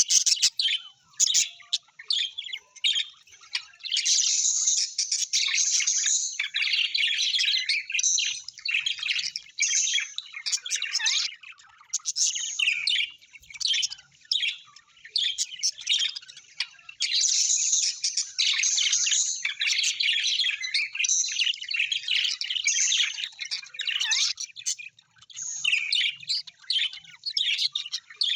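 Birds chirping and twittering in a dense, rapid stream of high calls, with brief lulls every few seconds.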